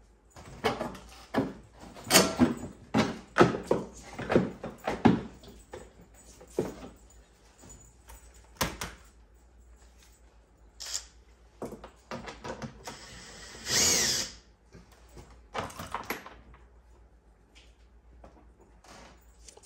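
A quick series of metal clinks and knocks as bolts and hand tools are handled on an ATV's plastic footwell. About thirteen seconds in, a power drill runs for about a second and a half, undoing a brace fastener.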